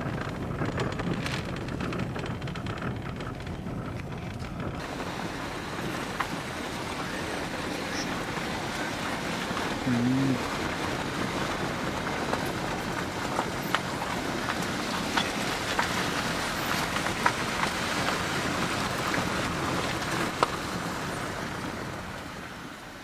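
Car driving on an unpaved mountain road: steady engine and road noise with scattered sharp ticks of stones and gravel under the tyres. It grows quieter near the end.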